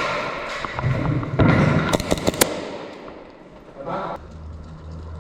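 Airsoft gun firing: a quick string of about four sharp shots around two seconds in, with a short noisy burst near the end.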